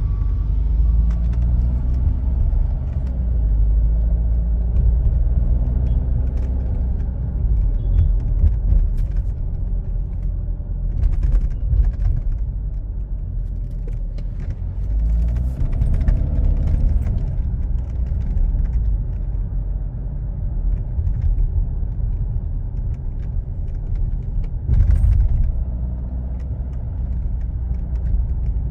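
Door of a 2023 Tata Harrier rattling in short, irregular clicks over a steady low rumble of road and engine inside the moving car. The clicks come in clusters, about a third of the way in, midway and near the end. The rattle is the fault being shown.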